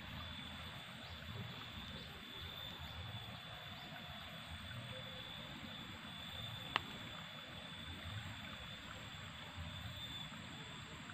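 Steady rush of a flowing river, with a thin, steady high-pitched tone over it and one sharp click about seven seconds in.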